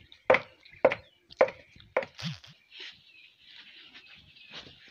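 Wooden pestle pounding food in a mortar, four strokes a little over half a second apart in the first two seconds, then it stops.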